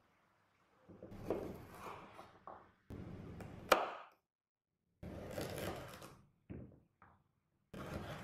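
Kitchen knife cutting a carrot on a wooden chopping board: a few separate cuts, each a short crunching rasp through the carrot, with a sharp knock of the blade on the board a little under four seconds in.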